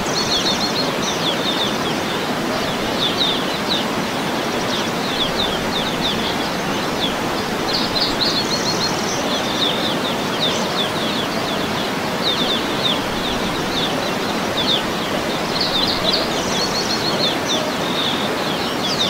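Waterfall splashing in a steady rush of water, with small birds chirping in short runs every second or two over it.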